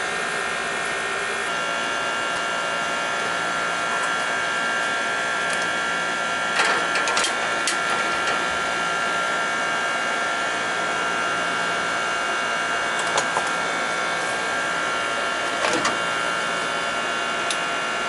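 A machine running with a steady whir and several steady high whining tones, with a few short knocks and clicks about seven seconds in and a few more near the end.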